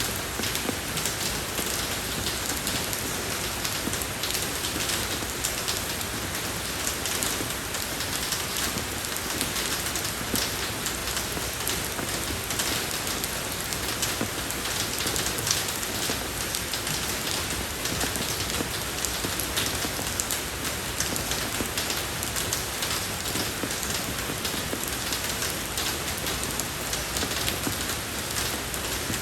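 Steady rain falling on a road, a dense even patter of many small drops.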